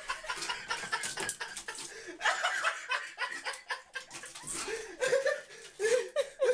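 A person laughing and chuckling in short broken bursts, with scattered light knocks.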